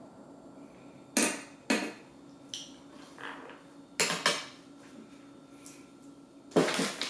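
Sharp clinks and knocks of a metal spoon and other kitchen items being handled on a wooden counter: two clinks about a second in, two more around four seconds in, and a louder clatter near the end.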